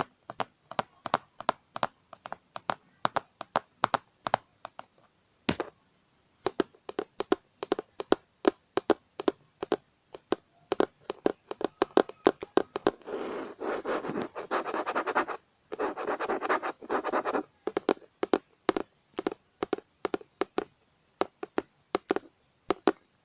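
Fingertips tapping on a computer keyboard, a run of crisp separate clicks at two or three a second. About halfway through, two spells of much faster tapping run together into a continuous rattle.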